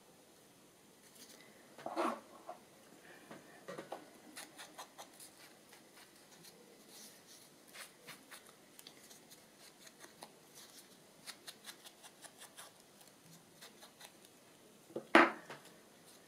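Paper-crafting handling noises at a desk: a run of light ticks and small rustles, two or three a second, with a louder rustle about two seconds in and a single sharp knock near the end.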